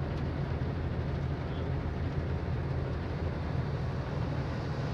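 Boat's engine running steadily, a constant low hum heard inside the wheelhouse while underway.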